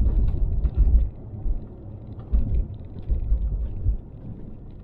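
Road noise and low rumble of a moving car, heard from inside the cabin, with uneven low surges in the rumble.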